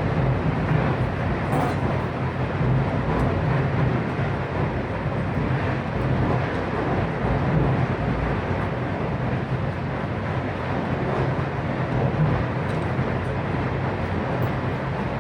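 Steady mechanical rumble with a low hum and a hiss, unchanged throughout, with a few faint clicks.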